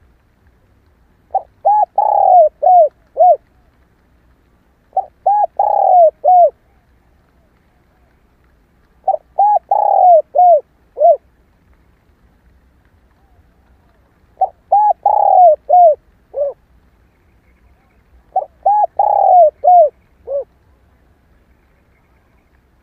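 Spotted dove cooing: five phrases of four or five notes, one about every four seconds, with a longer middle note in each. It is offered as a female's call ('cu mái'), played as a lure to stir a caged male to coo.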